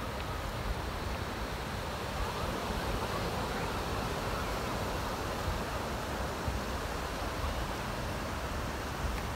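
Steady rush of ocean surf breaking on a beach, with a low rumble of wind on the microphone.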